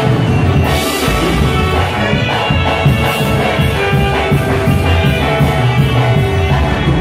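A live band playing, with a steady drum beat.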